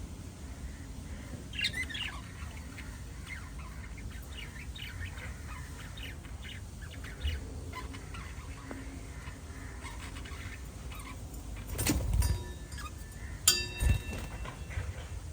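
Pet budgies chirping and twittering in short scattered calls, with a few louder knocks or clatters near the end.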